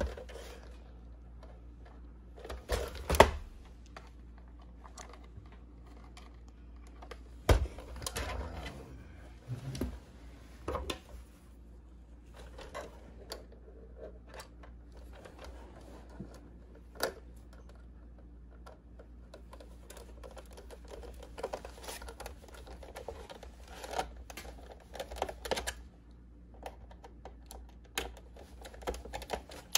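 Clicks, taps and light scrapes of a plastic toy remote-control pickup being handled and a small screwdriver working the screw on its underside. A few louder knocks come in the first ten seconds, and the small clicks grow denser near the end.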